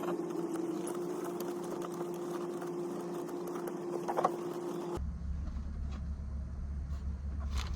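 A steady mechanical hum holding one constant tone. About five seconds in it cuts off abruptly and a low rumble takes its place, with a faint click near the end.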